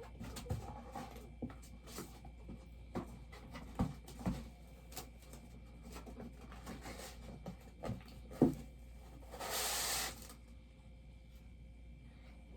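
Hands handling and opening a cardboard bobblehead box: scattered light taps and knocks, a sharper knock about 8.5 seconds in, and a second-long burst of packaging noise just before the 10-second mark.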